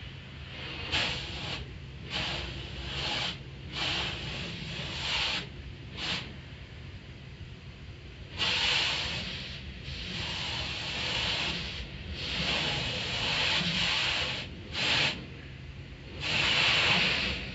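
Water jets of an automatic car wash spraying onto the car, heard from inside the cabin as a hiss that surges and drops every second or two, over a steady low hum.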